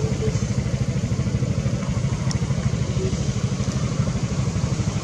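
An engine running steadily: a low, even rumble that keeps up throughout.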